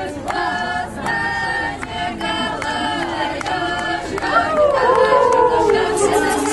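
A group of people singing or chanting together in short held notes. In the last couple of seconds the voices slide in pitch and grow louder.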